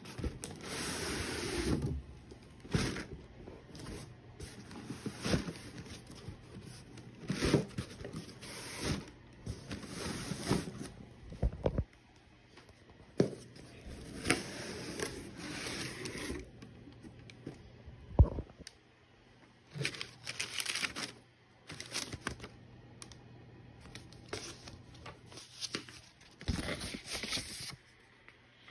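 A cardboard shipping box being opened and handled: irregular bouts of tearing, scraping and rustling of cardboard and paper, with a few sharp knocks as the box is moved.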